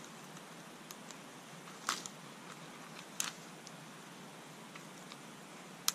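Dry shredded cedar bark and fireweed fluff tinder crunched and worked between gloved hands: three short crisp crunches over a faint steady hiss.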